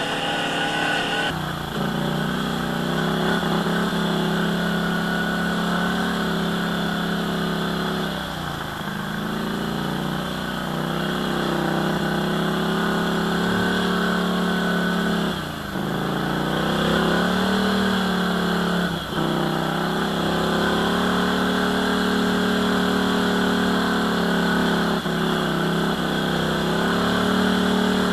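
ATV engine running under throttle on a trail, its note dipping briefly about three times as the throttle is eased off and then picking up again.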